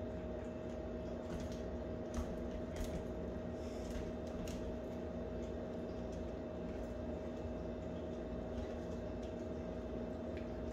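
Steady electrical hum with a constant tone throughout, with a few faint ticks and taps from a small dog's claws on a hardwood floor, about two and three seconds in and again a little later.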